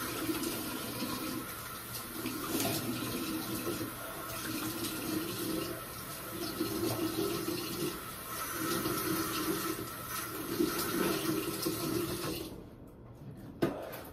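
Bathroom sink tap running while water is splashed onto the face to rinse it, with uneven splashing pulses over the flow. The water cuts off suddenly near the end, followed by a single sharp knock.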